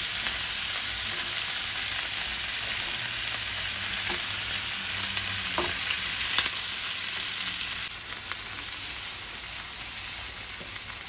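Hanwoo beef steaks sizzling steadily in hot oil in a frying pan, with a few light clicks. The sizzle drops a little about eight seconds in.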